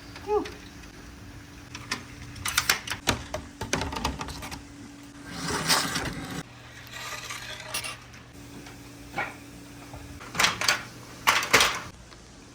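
Marbles rolling along a wooden marble-run track and clicking against it and each other, in several bursts of sharp clacks with a longer rolling rumble about six seconds in. A faint steady hum runs underneath.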